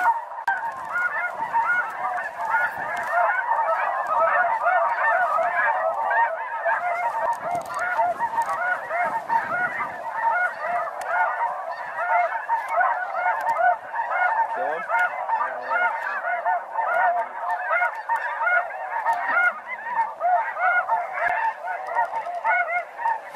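Snow geese calling en masse: a dense, unbroken chorus of many overlapping honks.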